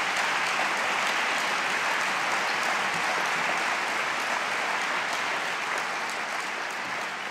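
Large audience applauding, the clapping steady and then slowly dying away near the end.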